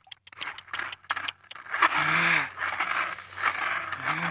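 Scraping and rattling of hard objects, full of small clicks and knocks, with two short voice sounds about two seconds in and near the end.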